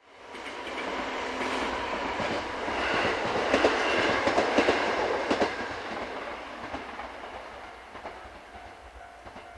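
Two-car railcar train passing over a level crossing. Its wheels click over the rail joints, loudest about four to five seconds in, then the sound fades away. Steady tones, most likely the crossing's warning bell, sound throughout.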